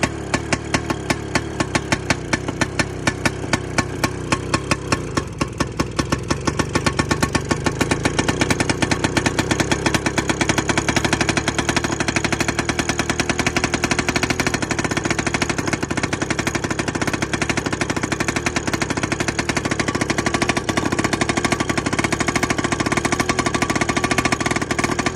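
1960 crawler tractor engine running after a hard start, each firing a distinct sharp exhaust pulse. It runs slowly at first, then picks up speed about six to eight seconds in and keeps running faster and steadily.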